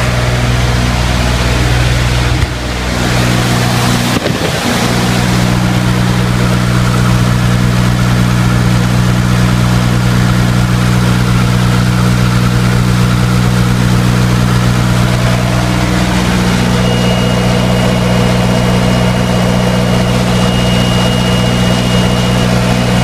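A four-cylinder, naturally aspirated diesel generator engine running at a steady speed. A brief scuffle of handling noise comes a few seconds in, and a thin high whine joins it about two-thirds of the way through.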